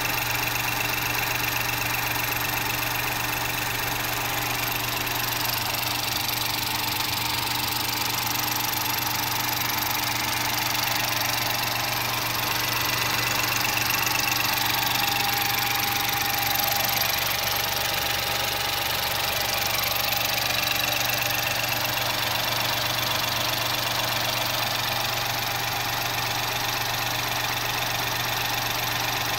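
Ford EcoSport's turbocharged EcoBoost 1.0-litre three-cylinder engine idling steadily, heard up close under the open hood, just after an oil change.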